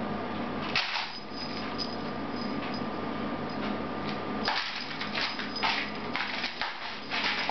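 A cat's claws clicking and scrabbling on a ceramic tile floor as it turns and spins around: one click about a second in, then a quick run of clicks and scrapes from about halfway through. A steady low hum runs underneath.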